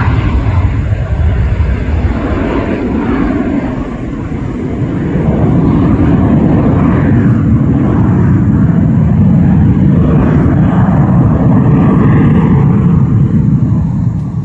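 Twin Pratt & Whitney PW535E turbofans of an Embraer Phenom 300 at takeoff power as the jet climbs away after liftoff: a loud, steady jet rumble. It dips about four seconds in, then swells again.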